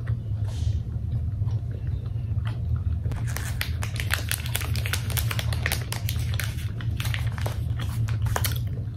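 Plastic mochi wrappers crinkling and rustling in quick irregular crackles as the packets are handled, starting about three seconds in. A steady low hum runs underneath.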